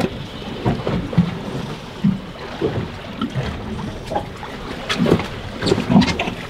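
Wind buffeting the microphone and waves slapping against a small boat's hull in uneven splashes and knocks, busier near the end.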